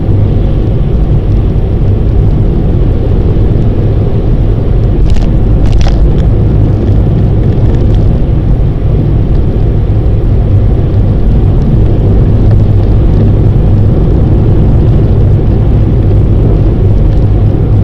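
Steady low road and engine rumble of a moving car heard from inside its cabin, with two brief clicks about five and six seconds in.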